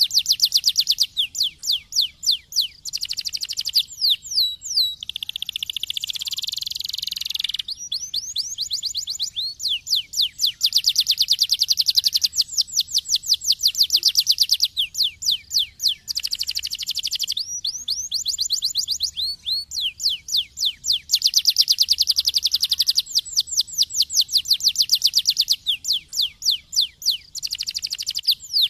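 Canary singing a long continuous song of fast trills, each tour a rapid run of repeated notes sweeping down in pitch, changing to a new trill every few seconds, with a harsh rasping stretch a few seconds in.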